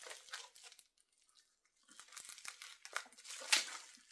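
Crinkling and rustling of a small parcel wrapped in brown paper and clear plastic as fingers handle and pick at the wrapping, stopping for about a second before starting again, with one sharp louder crinkle near the end.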